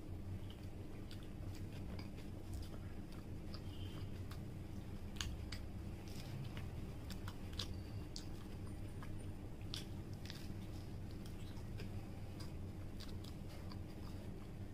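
Close chewing of a burger with a crispy fried patty: repeated bites, soft crunches and wet mouth clicks scattered irregularly, over a steady low hum.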